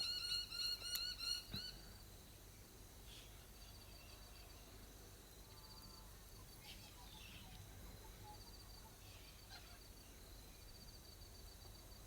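Birds calling in open country. A pitched call repeats about four times a second for the first couple of seconds, then stops. Faint high trills recur over a quiet background hiss.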